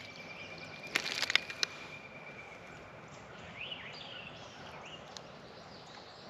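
Birds chirping, with a thin steady whistle early on. A short cluster of sharp clicks and knocks about a second in comes from fish and tackle being handled in the kayak.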